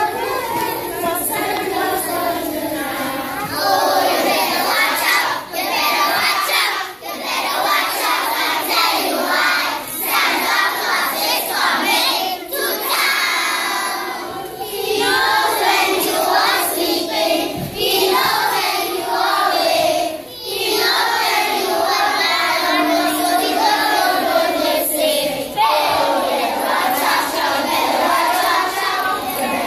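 Children's school choir singing a Christmas carol together.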